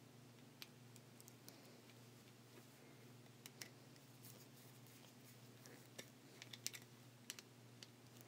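Near silence with faint, scattered small clicks of a flathead screwdriver working the terminal screw of a plug while fastening a wire to its prong, over a faint low hum.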